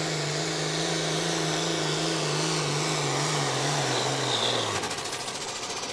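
Outlaw farm-class pulling tractor's diesel engine running at high revs under full load, with a strong steady hiss over it. About three quarters of the way through, the pitch sags and the engine note drops away as the driver lets off at the end of the pull.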